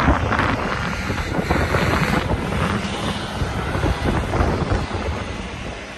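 City street ambience: steady low traffic rumble, with wind buffeting the microphone.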